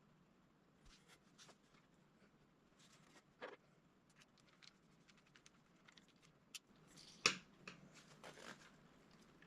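Faint, scattered clicks and light handling noises of a fishing reel's handle and power knob being worked by hand, with one sharper click about seven seconds in.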